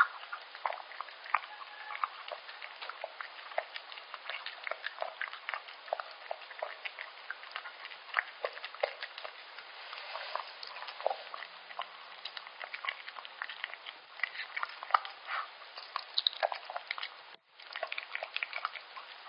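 Yorkshire Terrier eating soft, wet liver pâté from a stainless steel bowl: an irregular run of wet smacking and clicking chews and licks, close up. The sound cuts out for a moment near the end.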